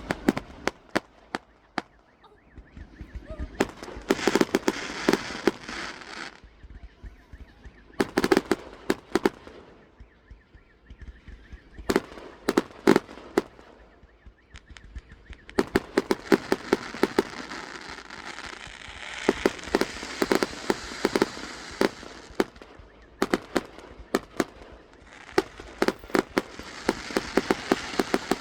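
Fireworks going off in repeated volleys of sharp bangs and crackling, with short lulls of a second or two between volleys.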